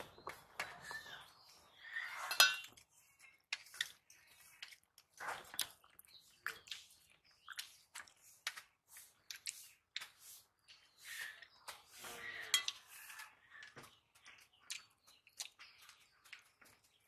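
Fingers mixing and scooping rice on stainless steel plates while eating by hand: irregular light scrapes and clinks of the metal plates, the sharpest clink about two seconds in.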